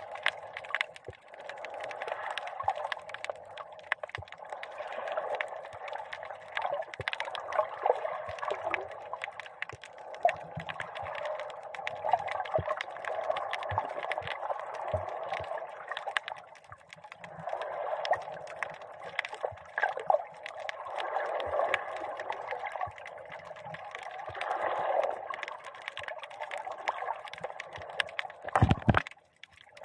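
Muffled water sloshing and gurgling, heard underwater through a camera's dive housing, with many small scattered clicks. A louder low thump comes near the end.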